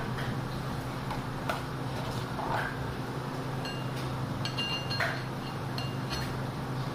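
Steady low hum with a few faint metallic clinks and short high pings in the middle, as a steel palette knife and a metal cake turntable are handled while whipped cream is spread.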